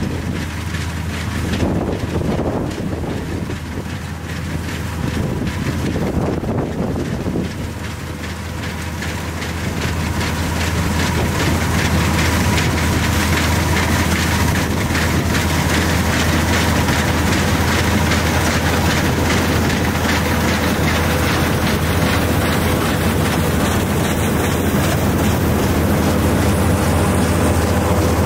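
1983 New Holland combine harvester with a Fiat diesel engine running while harvesting wheat: a steady engine hum under the rattle of the threshing machinery, growing louder from about ten seconds in as it draws close and passes. Wind buffets the microphone in the first few seconds.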